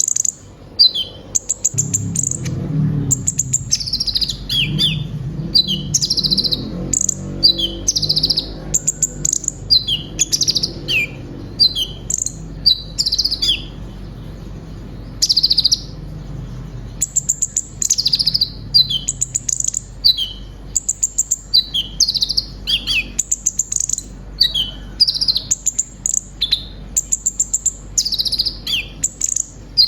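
Olive-backed sunbird (kolibri ninja) singing a fast, busy song of high chirps, trills and short falling notes, full of phrases mimicked from other birds, with a short pause about halfway through. A low hum sits underneath during the first third.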